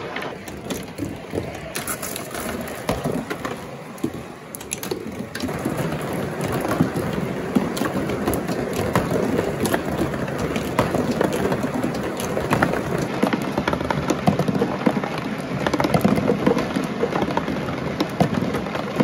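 Many glass marbles rolling round a cardboard funnel, a dense rattle of rolling and small clicks as they knock against one another. It grows fuller about five seconds in as more marbles arrive.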